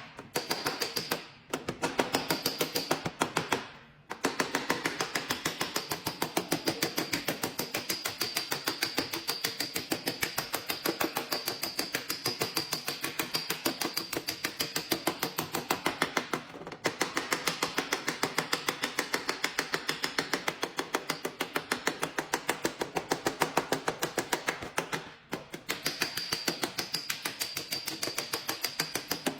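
Rapid light hammer taps on a car body panel, about five a second, with a few short pauses: a knockdown tool being tapped to level high spots around a dent during paintless dent repair.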